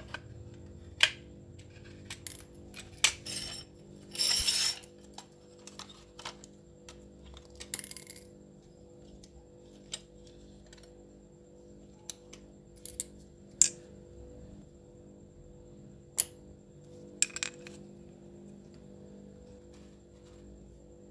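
Scattered sharp clicks and clinks of small diecast metal parts and hand tools being handled and set down on a hard work surface during a model car restoration. There is one short noisy burst about four seconds in, over a steady low hum.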